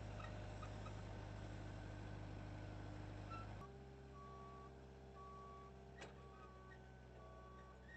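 Moffett truck-mounted forklift's engine running with a steady low hum that drops about halfway through, after which a reversing alarm beeps evenly, about one beep a second. A single sharp click near the end.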